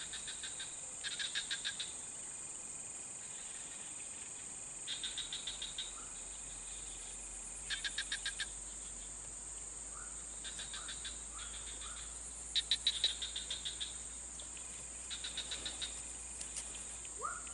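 Swamp insects and frogs calling: a steady high-pitched insect drone, with short trills of rapid pulses repeating every couple of seconds and a few brief rising chirps.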